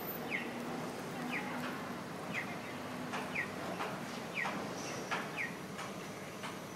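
Audible pedestrian crossing signal chirping: six short falling chirps, evenly spaced about one a second, over steady street traffic noise.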